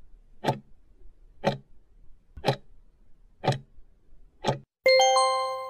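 Countdown-timer sound effect: five clock ticks, one a second, followed near the end by a loud ringing chime of several tones that fades away, marking the end of the answer time.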